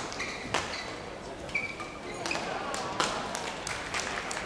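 Badminton rally: several sharp cracks of rackets hitting a shuttlecock, roughly one every half second to a second, with a brief shoe squeak on the court floor about halfway through.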